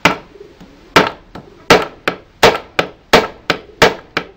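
Hammer blows driving a metal nut into a pine block: about a dozen sharp strikes, the first two a second apart, then a steady run of about three a second, each with a short ring.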